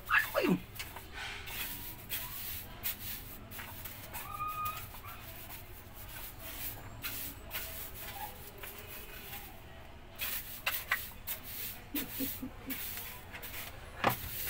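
Plastic broom bristles brushing and scraping in short strokes on a concrete ledge. A kitten meows briefly about four seconds in.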